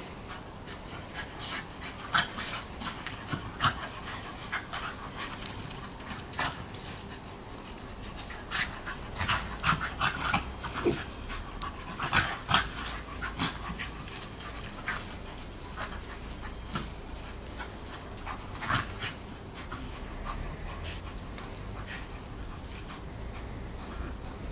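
Lakeland terrier and Plummer terrier pup play-fighting, panting, with short sharp sounds coming at irregular intervals, most thickly about halfway through.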